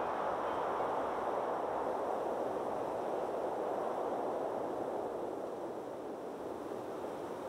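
Steady rushing of distant surf on a beach, easing off slightly near the end.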